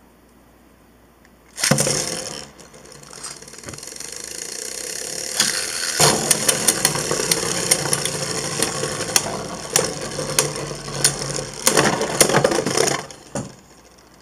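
Two plastic Beyblade spinning tops, Wolborg 4 and a second Beyblade, launched into a clear plastic stadium about a second and a half in, whirring loudly as they spin. From about five seconds on they collide over and over with sharp clicks, and the noise falls away near the end, leaving one top spinning quietly.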